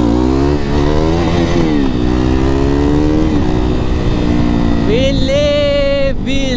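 Sport motorcycle engine pulling hard through the gears, its pitch climbing and dropping back at each shift, then easing off about three and a half seconds in. Near the end a long high-pitched cry sounds over it, followed by a second, shorter one.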